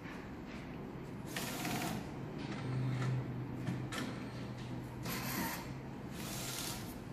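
DTG printer's print-head carriage and drive motor running the routine started by pressing the ink button: the carriage slides across with short whirring passes, and a steady motor hum runs through the middle.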